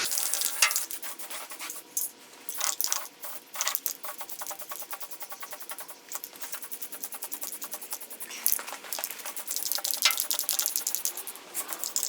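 An aerosol spray-paint can being shaken, its mixing ball rattling in quick, repeated metallic clicks, busiest near the end.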